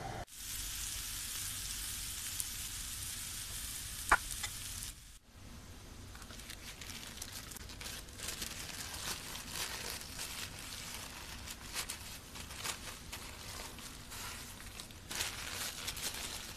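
Shawarma wrap sizzling as it toasts on a hot ribbed grill pan, with one sharp click about four seconds in. After about five seconds the sizzle stops abruptly and paper crinkles and rustles as the wrap is folded into it.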